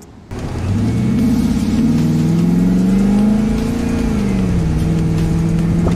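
Chevrolet Suburban's engine accelerating: the note rises steadily for about three seconds, eases off slightly, then holds steady.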